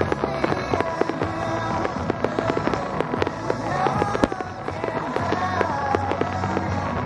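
Aerial firework shells bursting in a rapid, dense string of bangs and crackles, with one louder bang about four seconds in, over a music soundtrack.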